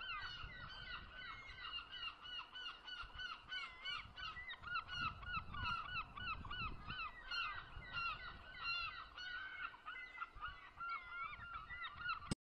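A flock of birds calling: many short calls overlap continuously, faint, with a low rumble underneath.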